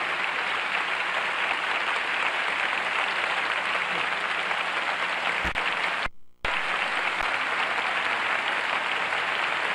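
Theatre audience applauding steadily, broken once by a brief dropout about six seconds in.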